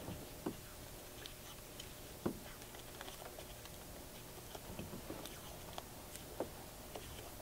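Electrical tape being unwound and wrapped around a wiring harness's nylon loom: faint, scattered crackles and light ticks, with a few slightly louder clicks.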